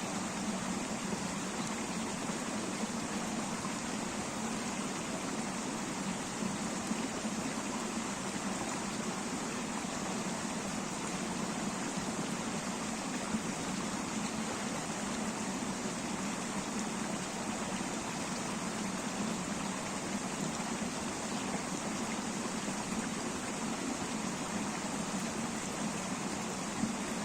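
A river running over stones: a steady, even rush of water.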